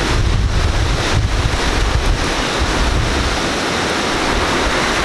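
Heavy hurricane rain and gusting wind, a steady rushing hiss, with the wind buffeting the microphone in an uneven low rumble.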